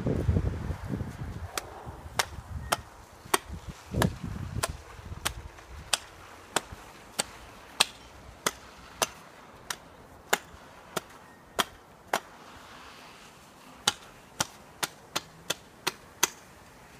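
Repeated sharp chopping strikes, roughly one every half second or so, pausing briefly and then coming quicker near the end. Wind rumbles on the microphone at the start.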